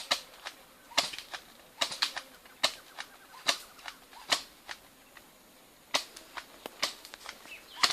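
Airsoft guns firing single shots: a string of sharp cracks at uneven intervals, some loud and some fainter.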